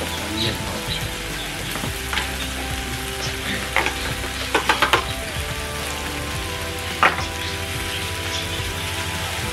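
Pork belly and brisket sizzling steadily on a tabletop grill pan. Metal tongs click against the pan a few times near the middle, then once more about seven seconds in.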